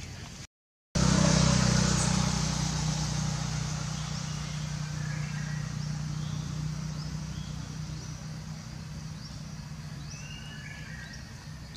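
A motor engine hum with a steady, unchanging pitch starts loud just after a brief silence and slowly fades. A few short bird chirps sound about five seconds in and again near the end.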